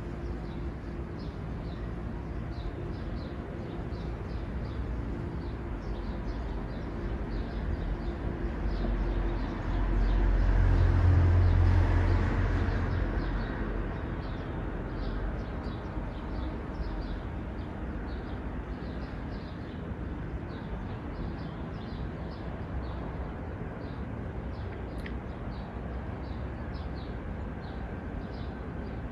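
Distant rumble of a Bernese Oberland Railway (BOB) electric mountain train running along the valley. It swells for a few seconds about ten seconds in, then fades. A small bird chirps over and over throughout.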